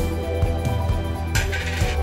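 Background music with a steady beat, and a short hiss about one and a half seconds in.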